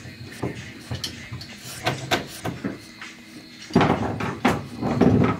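Clicks and knocks of car interior trim parts being handled and fitted, with a louder stretch of knocking and rattling about four seconds in.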